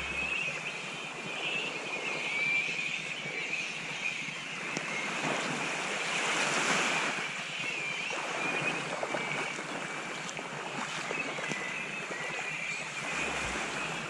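Shoreline ambience: a rushing wash like surf or wind, swelling louder about halfway through, under a steady, slightly wavering high-pitched chorus.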